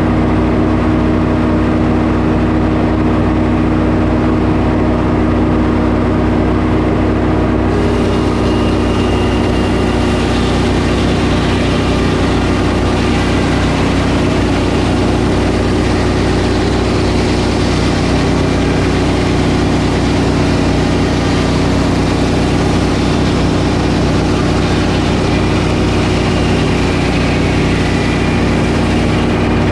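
Engine-driven sawmill running steadily at speed. About eight seconds in, a higher hiss joins the engine sound and continues.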